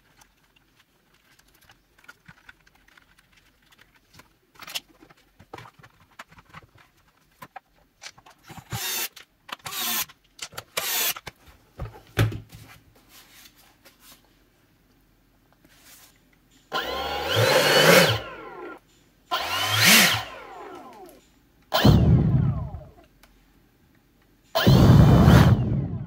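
Clicks and rattles of the blower's plastic housing being handled and fitted together. From about two thirds in, the EGO 650 CFM blower's brushless fan motor, now driven by a cheap retrofitted BLDC controller, runs in four short bursts, each spinning up and then winding down in a falling whine.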